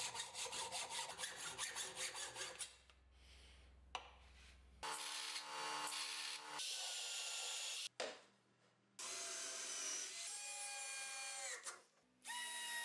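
A hacksaw cutting through a steel pipe clamped in a vise, in rapid rasping strokes. After a short gap, a bench sanding machine runs as a small part is sanded, and later a power tool runs and winds down, its pitch falling.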